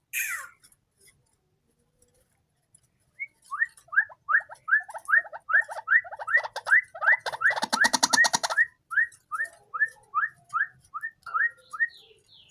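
White-breasted waterhen (ruak-ruak) calling: a long run of short upward-gliding notes, about three a second, which begins a few seconds in and stops just before the end. About halfway through, a rapid rattling sound lasting about a second overlaps the calls.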